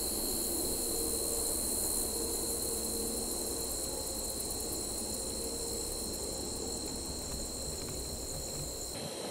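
A chorus of night insects, crickets among them, keeps up a steady high-pitched chirring.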